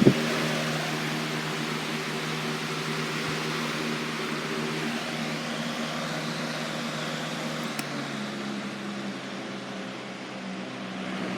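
Lasko box fan running: a steady motor hum under a rush of air. About eight seconds in there is a faint click and the hum shifts.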